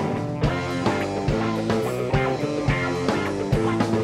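Live rock band playing an instrumental passage between vocal lines: distorted electric guitar chords over a steady drum beat.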